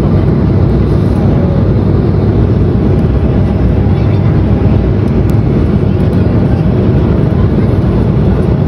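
Steady cabin noise of an Embraer E190 climbing after takeoff: its GE CF34 turbofans and the rush of air, heard from a seat over the wing.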